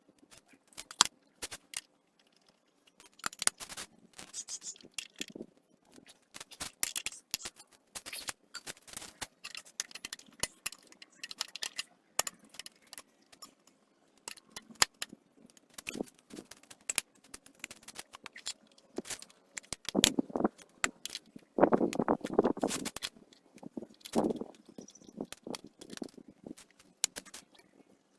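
Metal tools and motorcycle parts clinking, clicking and scraping as they are handled, in irregular bursts, with a louder stretch of scraping about two-thirds of the way through.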